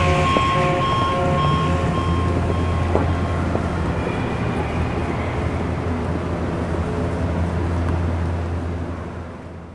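Steady low hum of outdoor city background noise, with a repeating beep during the first couple of seconds, fading out at the end.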